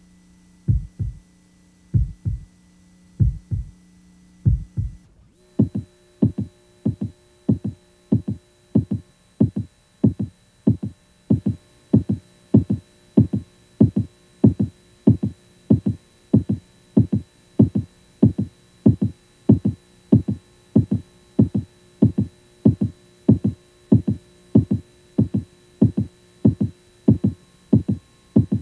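Heartbeat-like soundtrack of deep rhythmic thumps over a steady electronic hum. The thumps come in pairs about once a second, then about five seconds in they quicken to nearly two a second and the hum shifts.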